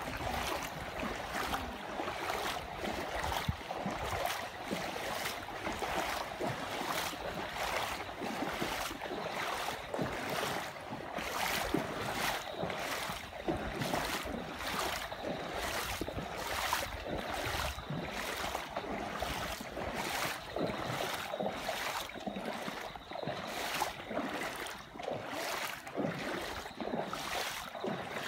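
Footsteps at a walking pace, about two a second, over a steady wind-like rushing noise.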